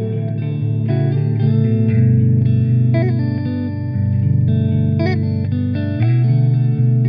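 Electric guitar played through a Zander Circuitry Templo reverb pedal: sustained notes changing about once a second, each ringing on under reverb.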